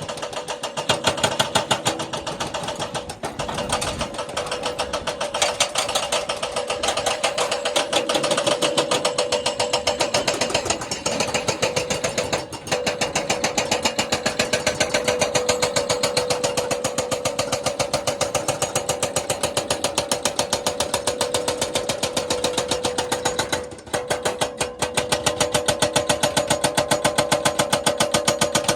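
Jackhammer hammering in a rapid, even rhythm over a steady drone, with two brief pauses.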